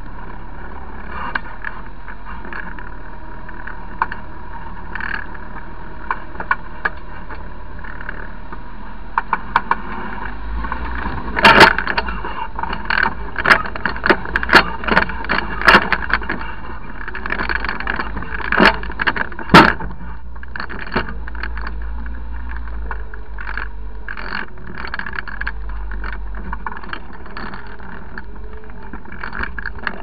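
Off-road 4x4 crawling through a rocky river crossing, heard from a camera mounted low on the vehicle: a steady low drone, with a run of sharp knocks and clatters from about ten to twenty seconds in as it goes through the water over the rocks.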